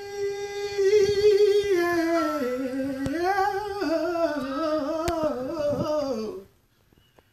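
A man singing alone, unaccompanied, on a long wordless line. He holds one note steady for about two seconds, then wavers and drifts lower in pitch, and stops about six seconds in.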